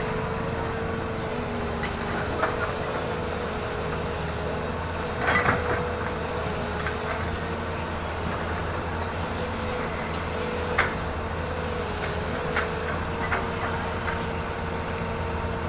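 SANY SY220C-9 excavator running steadily, a constant machine drone with a steady tone over it, broken by sharp clanks now and then, the loudest about five seconds in and again near eleven seconds.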